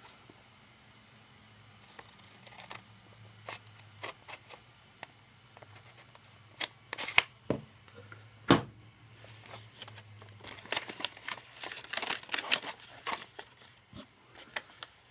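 Scissors cutting through a thick folded strip of paper, then the paper being handled and folded with dense crinkling rustles near the end. Sharp clicks and two loud knocks fall around the middle.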